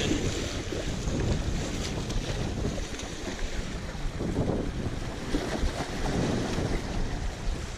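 Small waves washing and breaking against jetty rocks, with wind buffeting the microphone in low rumbling gusts.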